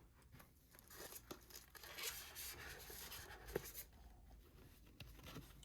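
Faint rustling of packaging being handled and unwrapped, with a few light clicks, loudest in the middle.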